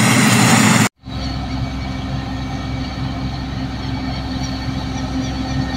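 A loud rushing noise cuts off about a second in. It is followed by the steady low running of a John Deere combine harvester's diesel engine.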